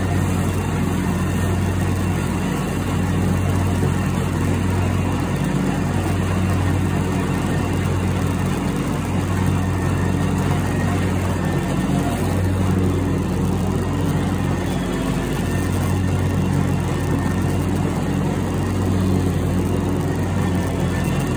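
Ride-on lawn mower's engine running steadily while mowing, a low drone that dips slightly every couple of seconds.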